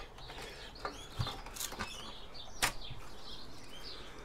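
Small birds chirping on and off in the background, with a few sharp clicks and taps of circuit boards being handled; the loudest tap comes about two and a half seconds in.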